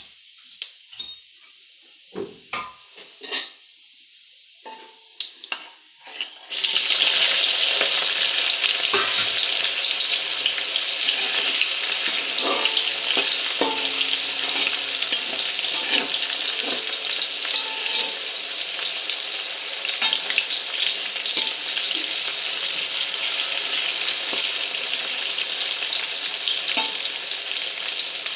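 A few light clinks and knocks of a utensil against a pan, then about six seconds in a loud, steady sizzle starts suddenly as food goes into hot oil, and keeps frying with occasional spatula knocks as it is stirred.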